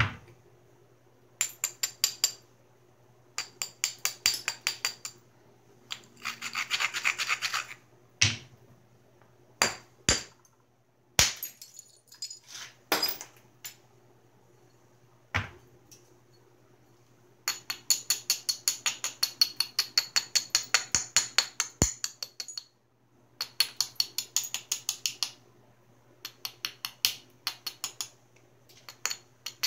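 Edge of a Georgetown flint biface being rubbed with a hand-held abrader in quick back-and-forth strokes, about seven a second, in runs of one to five seconds, preparing the platforms for flaking. A few single sharp clicks of stone on stone fall between the runs.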